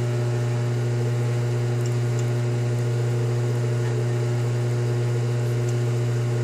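Metal lathe running at its slowest speed, about 70 RPM, a steady hum with a few faint ticks, while a .308 Winchester chamber reamer is fed by hand into the rifle barrel.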